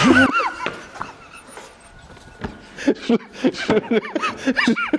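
Two men laughing: a loud burst of high laughter at the start, quieter breathy laughter after it, then a run of short, quick 'ha-ha' laughs over the last two seconds.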